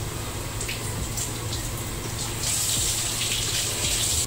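Kitchen tap running with water splashing over hands in the sink, the rush getting louder a little past halfway.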